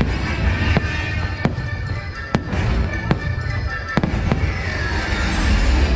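Aerial fireworks shells bursting in a string of about six sharp bangs, roughly one a second, over show music.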